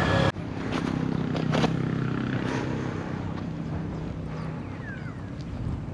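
A motor's steady low hum, which fades out after about four and a half seconds, with a few faint clicks and a short falling whistle near the end.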